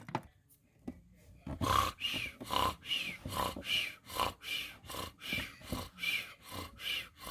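A voice making a quick series of short animal-like growling noises, about two a second, starting about a second and a half in.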